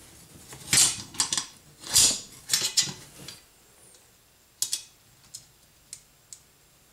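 Small metal parts and a shotgun's accessory rail being handled and fitted by hand: several sharp clatters and clinks in the first three seconds, then a few light clicks spaced about half a second to a second apart.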